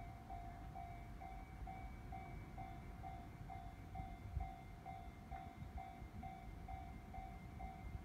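Japanese level-crossing warning bell ringing steadily at about two dings a second, signalling that a train is approaching, over a low rumbling background.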